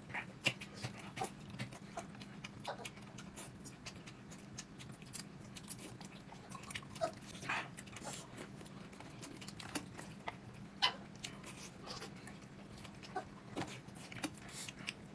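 People eating: irregular chewing and wet mouth smacks with small clicks, over a faint steady hum.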